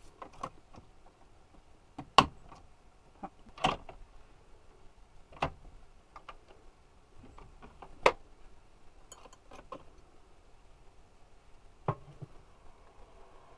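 Sharp plastic clicks and knocks from a Keurig single-serve brewer being loaded and shut, a second or two apart. After a last click near the end, the brewer starts up with a faint steady hum as it begins brewing.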